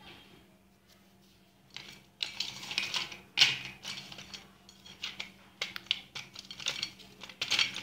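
Thin white slate pencils and chunks of fuller's earth clicking and clattering against each other and a steel plate as a hand sorts through them, with a light rustle. It starts about two seconds in, with the sharpest click near the middle.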